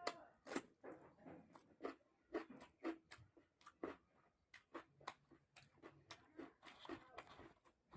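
Close-up chewing and mouth sounds of someone eating puri with chana dal curry: a string of soft, separate wet smacks and clicks.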